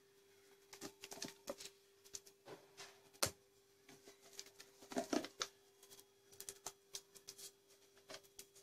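Faint scattered taps and clicks of thick ground urad dal batter being scooped by hand into a steel bowl, with two slightly louder knocks about three and five seconds in. A faint steady hum lies underneath.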